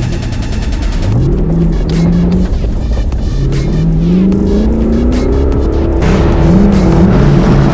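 A rally car's engine being driven hard. Its pitch climbs several times, about a second each, and drops between the climbs as the driver accelerates, then shifts or lifts.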